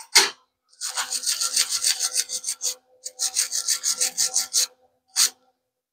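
Rapid, even rasping strokes on metal, like hand filing, about nine a second, in two runs with a short break between them and a single scrape near the end.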